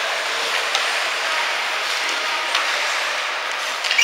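Ice hockey game ambience in the rink: a steady hiss of skates and rink noise, with a few faint knocks of sticks and puck.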